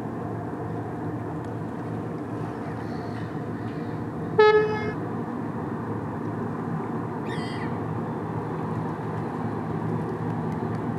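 Steady low engine rumble from a passing bulk carrier. A single short horn toot sounds about four and a half seconds in and is the loudest sound. A gull calls a few seconds later.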